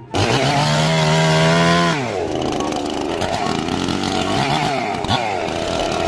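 A motorised power tool running at high speed with a steady pitch, which drops about two seconds in and goes on running rougher and unevenly.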